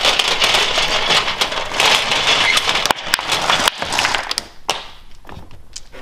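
Clear crystal cubes poured from a crinkling plastic bag into the tray of an electric fireplace, clattering against each other and the metal tray. A dense clatter for about three seconds, thinning to a few scattered clicks as they are spread by hand.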